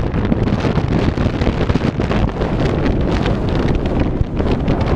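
Wind buffeting the camera's microphone: a loud, uneven rushing rumble.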